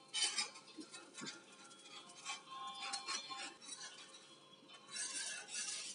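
Spatula clinking and scraping lightly against a cast iron dosa pan in a few scattered, faint strikes as the flipped dosa cooks.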